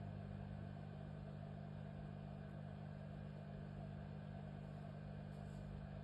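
Steady low hum with a faint hiss over it; no handling clicks or knocks stand out.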